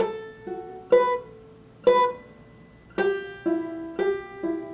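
Five-string banjo played clawhammer style with drop-thumb notes: a slow, even run of single plucked notes and brushed chords, each ringing briefly before the next.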